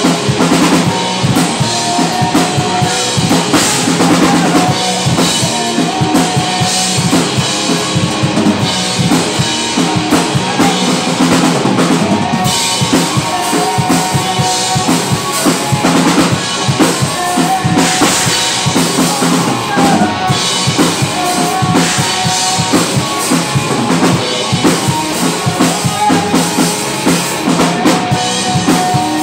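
Live rock band playing loudly: a Tama drum kit, electric guitar and electric bass, with a woman singing into the microphone in held, wavering notes.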